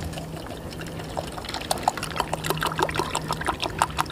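Water poured from a plastic bottle into a metal canteen cup, splashing and trickling in quick irregular spatters that start about half a second in and grow busier.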